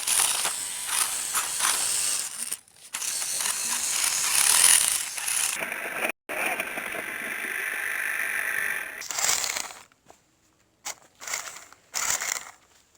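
Toy RC rock crawler's small electric motor and gearbox whirring as it drives, in runs of a few seconds broken by brief stops. Near the end it moves only in short bursts.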